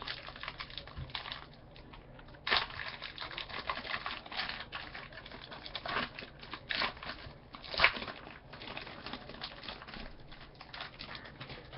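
A trading card pack being opened and its cards handled: irregular crinkling, rustling and light clicks, with a sharper snap about two and a half seconds in and again near eight seconds.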